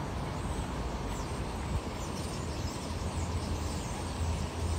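Steady low rumble of outdoor background noise, with a few faint high chirps around the middle.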